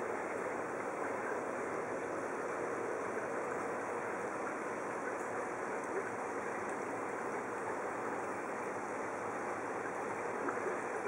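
Steady underwater hiss picked up through a camera's waterproof housing, with a couple of faint clicks.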